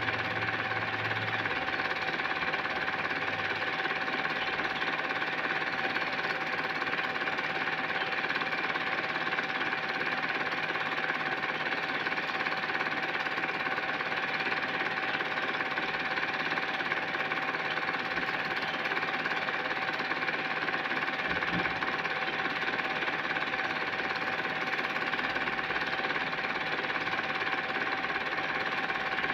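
Film projector running steadily, its mechanism giving an even whirring clatter with a constant tone over it.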